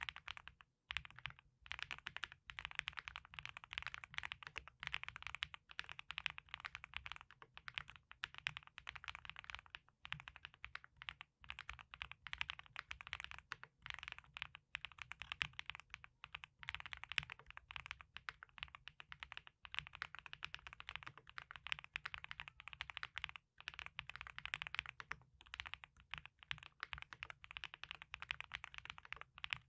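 Continuous fast typing on a wooden-cased Null64 mechanical keyboard with F1 switches: a dense stream of key clicks, with only a few brief pauses.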